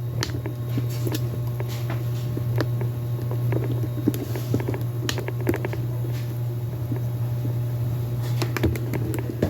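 Scattered light clicks and taps of cans and kitchen items being handled, over a steady low hum.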